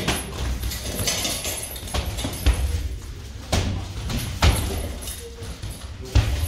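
Kickboxing sparring: a handful of sharp thuds of gloves and shin guards landing, the sharpest about three and a half and four and a half seconds in, with dull footfalls on foam mats between them.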